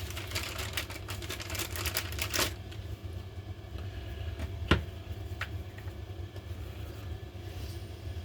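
Small parts of a Makita DTD154 impact driver being handled during reassembly: a dense run of clicks and rattles for about two and a half seconds, then one sharp click near the middle and a lighter click soon after. A steady low hum runs underneath.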